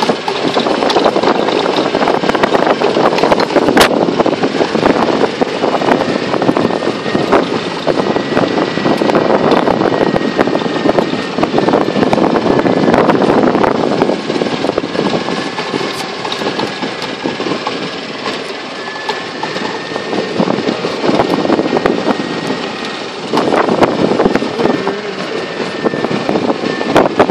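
Golf cart driving over fairway grass: its motor running steadily under many small jolts and rattles from the bumpy ride, with a faint thin whine through much of it.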